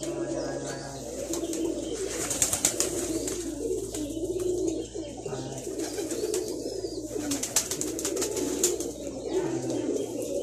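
A flock of domestic pigeons cooing together, many overlapping low calls without a break, with clusters of sharp clicks about two seconds in and again around eight seconds.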